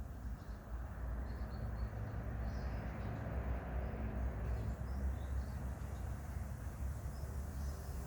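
Outdoor forest ambience: faint, scattered bird chirps over a steady low rumble and a hiss.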